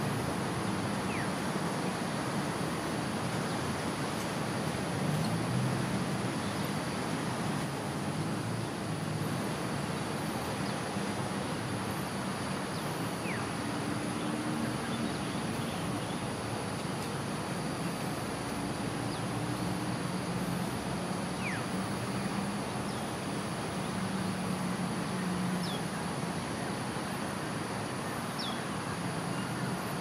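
Steady low rumble of road traffic, with a continuous high insect drone and a few short bird chirps scattered through.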